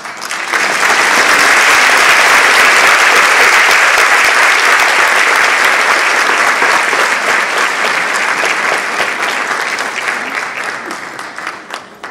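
Large audience applauding, swelling within the first second, holding steady, then fading out near the end.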